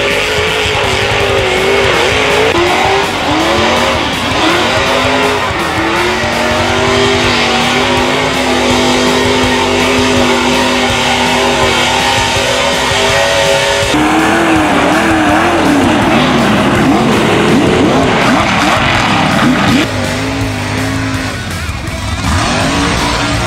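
Mud-bog trucks' engines revving hard, the pitch rising and falling as the tires spin and throw mud and dirt. Rock music with guitar is mixed underneath. The sound changes abruptly about two-thirds of the way through and again near the end, at cuts between trucks.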